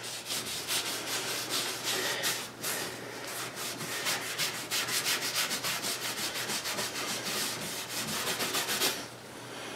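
A cloth rag rubbing water-based dye stain onto bare, freshly sanded mahogany in quick, repeated back-and-forth strokes. The strokes stop shortly before the end.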